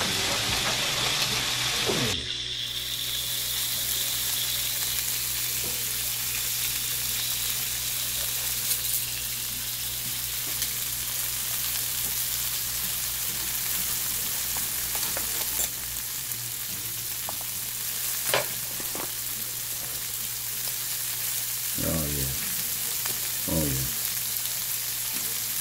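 Steak cubes, halved potatoes and red onion sizzling steadily in a frying pan as everything heats through at the end of cooking, with metal tongs stirring and turning the food and clicking against the pan a few times.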